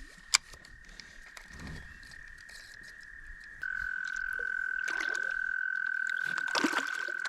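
Frogs trilling: one long, steady, high trill, joined about three and a half seconds in by a louder, slightly lower trill. A single sharp click sounds just after the start.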